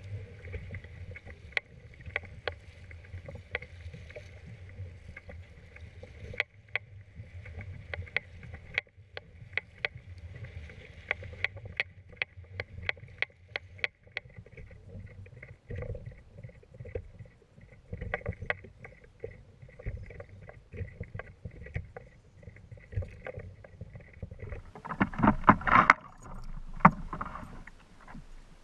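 A fishing kayak being paddled through wind-driven chop: water slapping and rushing along the hull over a low wind rumble, with scattered sharp clicks that come several a second through the middle. Near the end a burst of louder splashing as a hooked bass thrashes at the surface beside the kayak.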